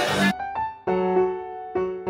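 Loud party music with crowd noise cuts off abruptly about a third of a second in. Slow piano chords follow, a new chord struck about once a second and left to fade.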